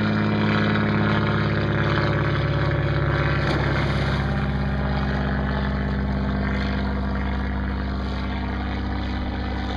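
Small boat motor running steadily, a low even drone whose pitch shifts slightly about three and a half seconds in.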